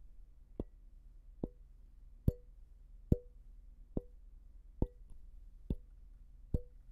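Fingertip tapping the metal body of an Earthworks Icon Pro condenser microphone, picked up by that same microphone: eight evenly spaced taps just under a second apart, each followed by a brief ring. It is a tap test for resonant frequencies in the mic's body.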